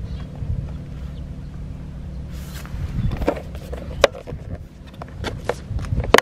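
Irregular sharp plastic clicks and knocks as the grey plastic cover of a pier-side ferry-call switch box is handled, the loudest about four seconds in and one at the very end. Under them runs a steady low rumble.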